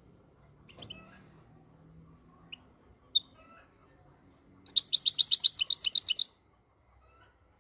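Moroccan goldfinch (European goldfinch) singing: a few soft scattered chirps, a sharper chirp about three seconds in, then a loud, fast trill of about ten high notes a second lasting about a second and a half.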